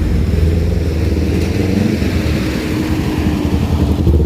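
Diesel engine of a large bus running steadily as the bus rolls past at low speed, a loud, low engine sound.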